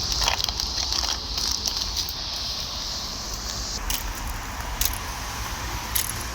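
Steady low rumble of traffic on the toll road, with a high, steady hiss that cuts off about four seconds in and a few sharp clicks.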